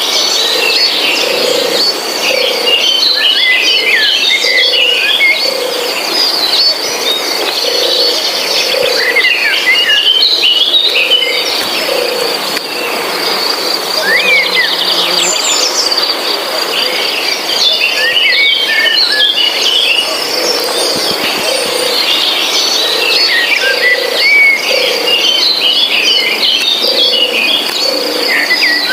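Forest soundscape: songbirds chirping and twittering in bursts over a steady high insect trill, with a low call pulsing about every two-thirds of a second.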